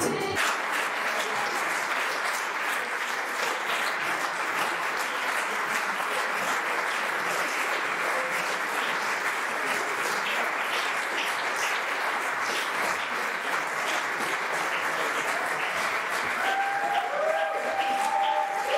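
Concert audience applauding steadily just after the music stops, with a few voices calling out near the end.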